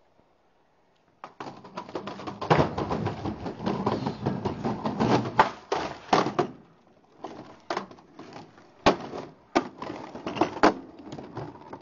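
Skateboard wheels rolling over wooden deck planks, a dense clattering that starts about a second in and stops about halfway. After that come several single sharp clacks of the board hitting the wood as flip tricks are tried.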